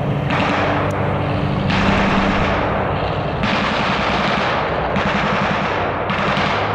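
Airsoft guns firing on full auto in repeated bursts, a new burst starting every one to two seconds, over a steady low hum.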